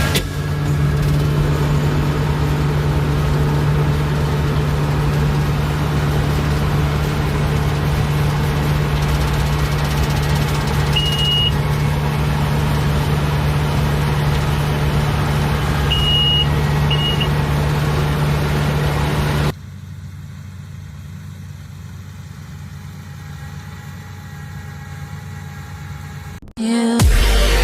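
Steady running of a machine's engine with a strong low hum, broken by three short high beeps. About two-thirds of the way in it cuts abruptly to a quieter steady hum.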